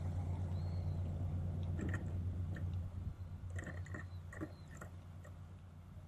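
Brown-eared bulbul on a wooden feeding table, a scatter of short sharp taps and clicks as it hops and pecks at the food, over a steady low hum. A few faint high whistles, like distant bird calls, come in between.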